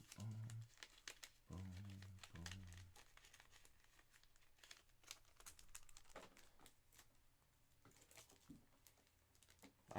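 Faint crinkling and soft clicking of trading cards and their plastic sleeves being handled.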